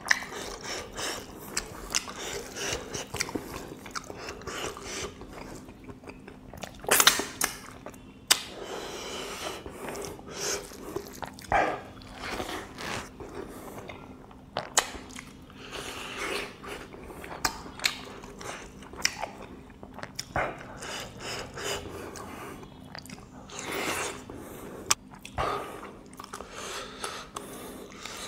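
Close-miked chewing of pork and rice, with many small wet clicks and a few sharper mouth sounds, the loudest about seven seconds in.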